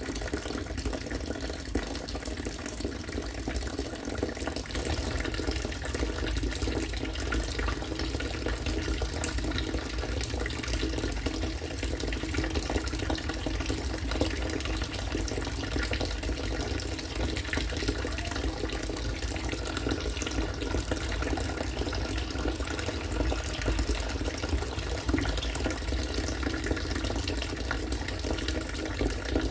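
Rainwater from a rainwater-collection system pouring and splashing steadily.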